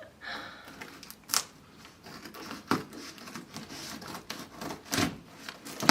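Packing material being torn, rustled and handled as a well-packed box is opened, with a few sharp clicks or knocks, the loudest near the end.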